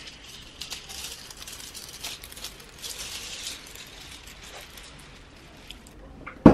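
Thin clear Mylar film crinkling and rustling as it is handled and pulled about on a wooden frame, dying down after a few seconds. A single loud knock comes at the very end.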